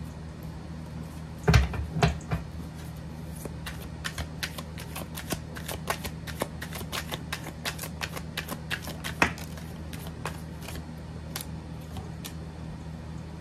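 A glossy gold-edged tarot deck being shuffled by hand: a fast, uneven patter of card clicks and flicks, with a few louder knocks, the first about one and a half seconds in.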